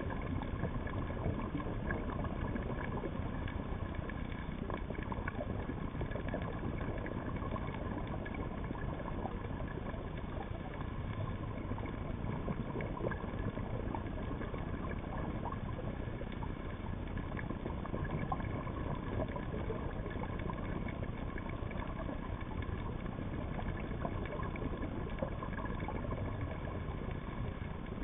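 Steady, muffled underwater noise with a few faint steady whining tones, picked up through an underwater camera housing.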